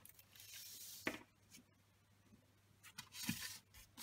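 Paper and cardstock handled by hand, rustling and sliding. There is a short tap about a second in and more rustling near the end.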